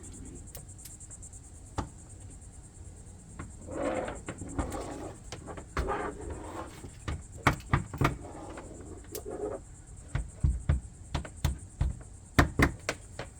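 Scattered knocks, taps and rustling of panel work inside a van, growing busier in the second half, over a steady high insect drone.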